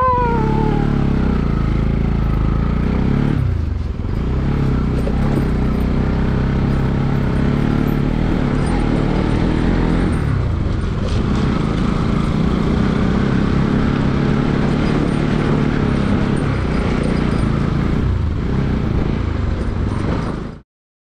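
Motorcycle engine running while riding, with road and wind noise; its engine note shifts a few times, with a brief dip about four seconds in. The sound cuts off suddenly near the end.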